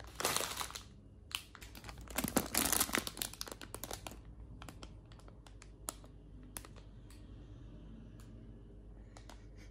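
Plastic gummy-sweet bags crinkling as they are picked up and handled, with dense crackling for the first four seconds, then a few scattered light clicks and taps.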